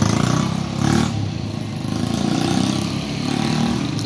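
KR125 motorcycle engine running and revving briefly a few times, now without misfiring after its regulator wiring fault (AC output connected to DC) was corrected.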